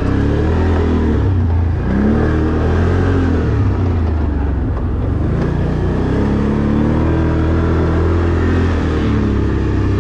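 Can-Am ATV engine running under throttle while riding across loose dirt, revving up and dropping back several times.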